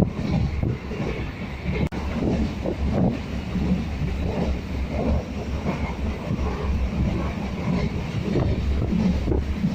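Suburban electric train running along the track: a steady low rumble of wheels on rails with irregular clatter.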